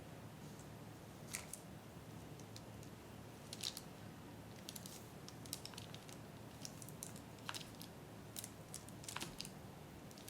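Faint, irregular light clicks and taps, about a dozen of them scattered over several seconds, over a low room hum.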